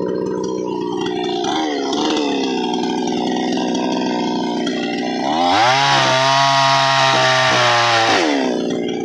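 Chainsaw engine running steadily, then revving up about five seconds in and holding at high revs for about three seconds before dropping back.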